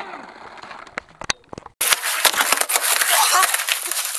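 Skateboard on pavement: a few sharp knocks of the board, then, after a cut, a dense crackling clatter of hard wheels rolling over rough asphalt.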